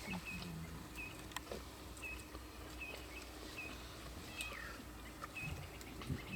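A bird calling faintly in the bush, a short high note repeated about once a second.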